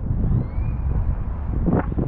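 Wind buffeting the microphone: a loud, rumbling low rush that swells near the end, with a faint rising whistle about half a second in.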